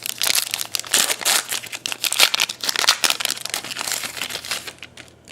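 Plastic wrapper of a trading-card pack being crinkled and torn open, a dense crackling that stops about a second before the end.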